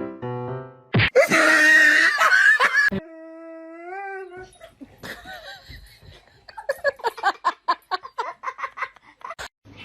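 A dog vocalizing: a loud, rough outburst lasting about two seconds, then a drawn-out pitched call that rises near its end, and later a quick run of short yaps.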